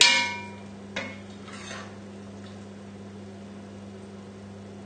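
Metal ladle clinking while serving stew from a casserole pot: a ringing clink at the start, then a sharp knock about a second in and a softer one shortly after. After that only a steady low hum.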